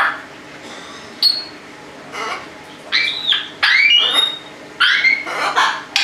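Pet parrots, an African grey and a macaw, calling: a run of short squawks and whistles that slide up and down in pitch, coming more often in the second half.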